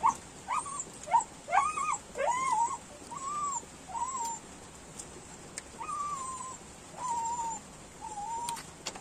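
Dog whining: a string of high whimpers, short and quick at first, then slower and more drawn out, about one a second.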